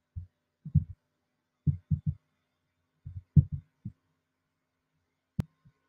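Computer mouse being dragged across a desk while painting, picked up as dull low thumps in irregular clusters, then one sharp mouse click near the end.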